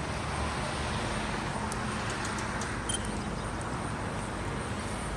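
Steady background noise of road traffic, with no siren sounding yet.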